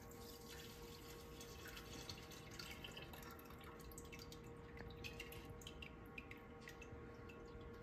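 Hot bacon grease trickling and dripping from a pot through a mesh strainer into a stainless steel grease container: a faint, irregular patter of small drips.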